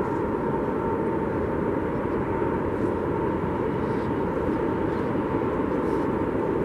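A steady, even rumble and hiss with a faint constant tone running through it, unchanging throughout.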